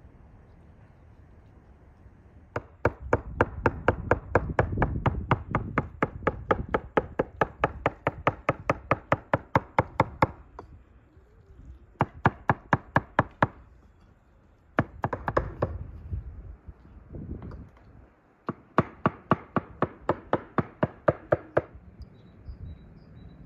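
A large knife chopping meat by hand on a thick wooden log block. It strikes in quick, even strokes, several a second, in runs broken by short pauses; the longest run lasts about seven seconds.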